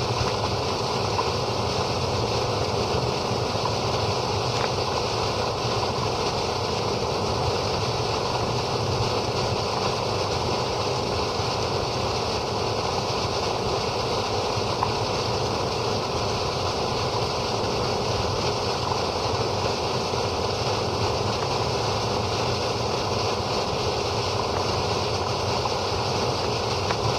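Water gushing steadily from a discharge pipe and splashing onto the ground while the pipe is flushed of iron bacteria, an even rushing with no change.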